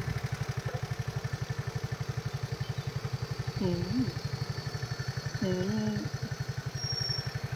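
A motorcycle engine idling with a fast, even beat. Two short murmured voice sounds come in near the middle.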